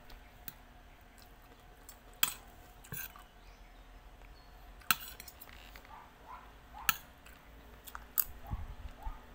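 A person eating with a spoon and fork: soft chewing with several short sharp clicks of the metal cutlery against a plate.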